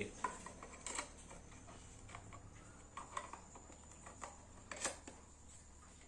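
Light plastic clicks and knocks from PVC pipe halves and end caps being handled and fitted together, a handful of scattered taps over a faint steady hum.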